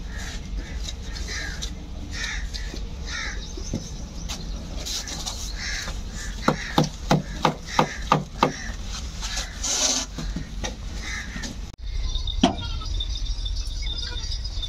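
Crows cawing, with a quick run of about seven caws in the middle.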